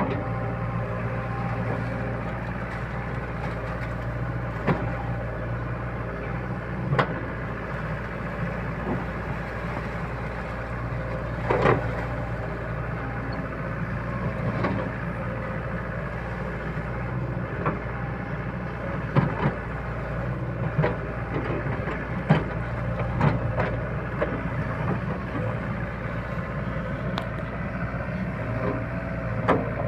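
SDLG crawler excavator's diesel engine running steadily as it digs in wet mud, with irregular sharp clanks and knocks from the digging.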